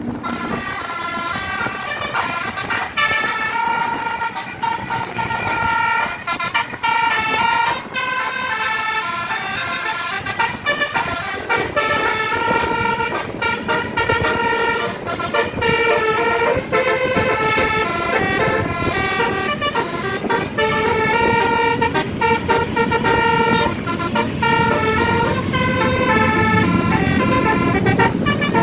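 Tour bus 'telolet' horn, a set of multi-tone air horns, playing a long tune of held notes that step up and down in pitch, over the bus's running noise.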